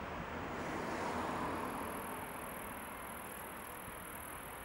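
Twin jet engines of a Boeing 777-200ER running at power on the runway: a broad steady roar that swells about a second in, with a steady high hiss joining shortly after.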